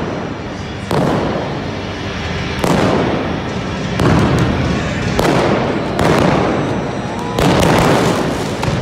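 Arena pyrotechnic flame cannons firing, about six sudden blasts of rushing noise that each fade over around a second.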